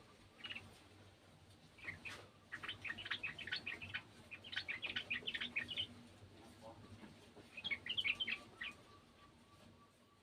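Yellow-vented bulbul (trucukan) calling in quick bursts of rapid high chirps. There are three or four chattering phrases, each lasting about a second.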